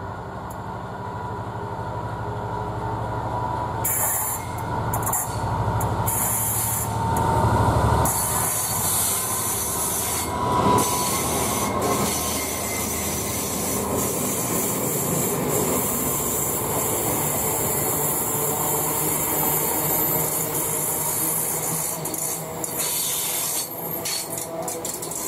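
Class 67 diesel locomotive approaching and passing close by at the head of a train of coaches. Its engine rumble grows louder over the first several seconds and peaks about eight seconds in, with a short high squeal from the wheels around then. After that the coaches roll past with a steady rush of wheels on rail and scattered clicks as their bogies cross the rail joints.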